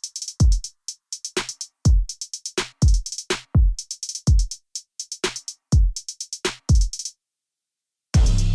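Background music: a drum-machine beat of deep kick drums that drop in pitch and quick runs of hi-hat ticks. It stops about seven seconds in, and a second later a different track starts with sustained bass and chords.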